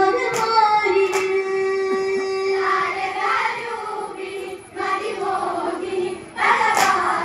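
A group of women and girls singing a Malayalam Onam kali folk song in unison, drawing out long held notes, with a few sharp hand claps: two near the start and one about seven seconds in.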